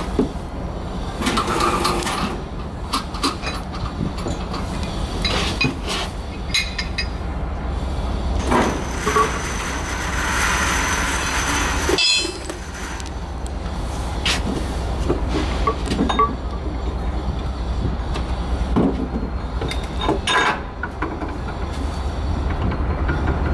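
Scattered metallic clinks and knocks as steel frame pins and a bar are worked into the frame of a running line tensiometer seated on wire rope, over a steady low machinery hum.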